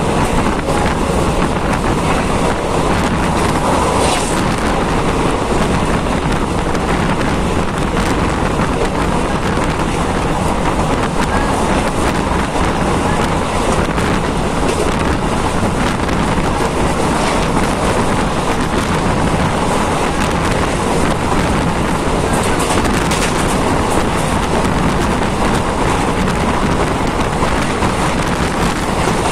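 Steady noise of a vehicle travelling along a road, with wind rushing over the microphone.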